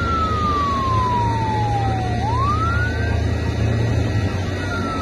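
Emergency vehicle siren wailing: one tone sweeps slowly down in pitch over about two seconds, then quickly back up, with another downward sweep starting near the end, over a steady low rumble.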